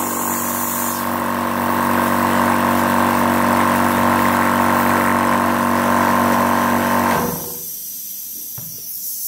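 Small water-cooled high-pressure PCP air compressor running steadily with an even hum as it fills an air gun through its filling probe. It cuts off abruptly about seven seconds in, leaving a fainter hiss.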